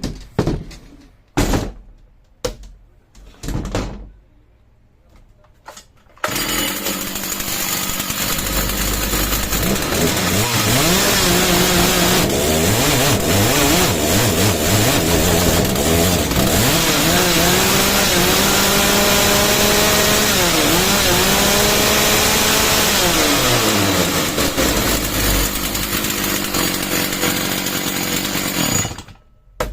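Stihl 066 two-stroke chainsaw: a few short bursts of sound, then from about six seconds in it runs loud and continuously at high revs. Its pitch dips and rises several times before it cuts off just before the end.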